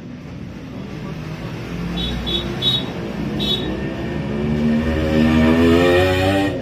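A motor engine revving up, rising in pitch and getting louder over the last two seconds, then cutting off suddenly. A few short, high metallic clinks come before it.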